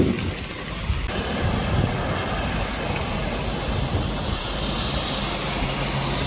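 Heavy rain falling on an asphalt road while a pickup truck drives past on the wet surface, its tyres hissing through the water. The hiss falls in pitch near the end as the truck goes by.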